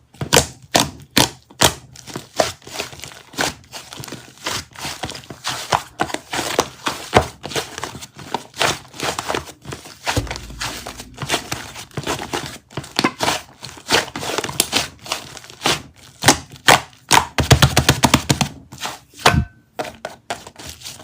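Typing on a smartphone keyboard: a fast, uneven run of sharp key taps and clicks, several a second, in irregular bursts.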